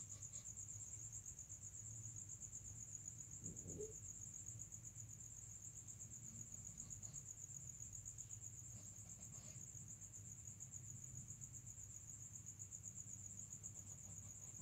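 Crickets chirping in a faint, steady, high-pitched trill, with a low hum underneath.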